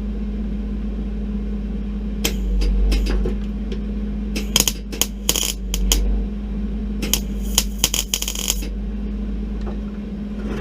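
Hobart Handler 140 MIG welder laying three short bursts of weld, each a second or two of crackling arc, over a steady electrical hum.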